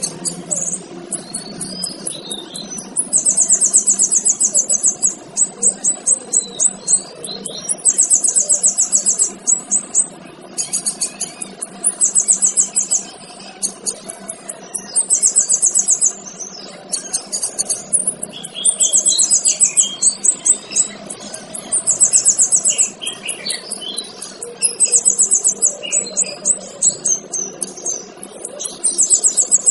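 Male kinoy bird singing: fast, high, buzzy trills, each lasting about a second, repeated every two to three seconds, with softer chirps and whistles between them.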